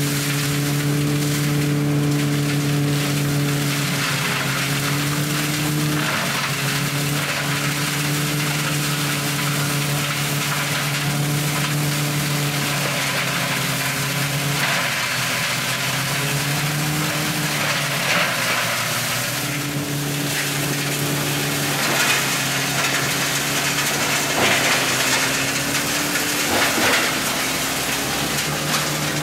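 Picursa tractor-mounted shredder with side feeder shredding pruned lemon branches: the tractor and rotor run with a steady hum, which drops in pitch under load for a few seconds around the middle and then picks back up. Over it, wood crackles and snaps, with sharper cracks in the second half.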